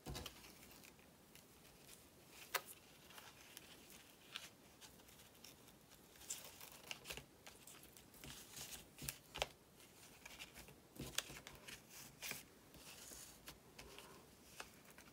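Faint rustling and scattered soft clicks of a ribbon being tied into a bow around a paper pillow box, fingers and ribbon brushing the card.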